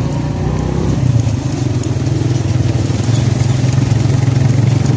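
Motorcycle engine running steadily as the bike rides along, heard from on the bike.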